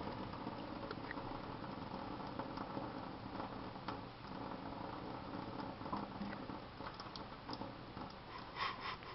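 Tap water running in a thin stream into a stainless-steel sink and splashing onto a cat's head, a steady spatter with scattered small splashes and a quick run of sharp clicks near the end.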